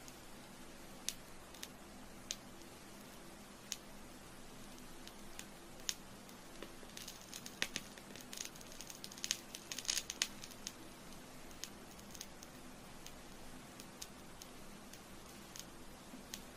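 Burning candle crackling and popping faintly over a steady low hiss: single pops every second or so, then a quick run of crackles about halfway through.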